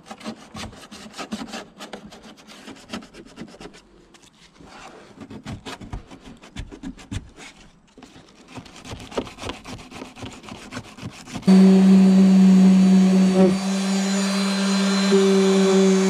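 Sandpaper rubbed by hand over a tractor's plastic cab roof and a rusty steel mounting plate, in irregular scraping strokes, to prepare the surface for a fiberglass patch. About eleven seconds in, an electric orbital sander switches on suddenly and runs with a steady hum against the roof.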